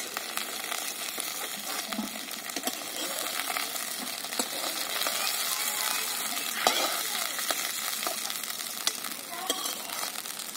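Okra frying in hot mustard oil in a steel kadai, a steady sizzle, while a metal spatula scrapes and taps against the pan as the fried pieces are lifted out, with a sharper clink about six and a half seconds in.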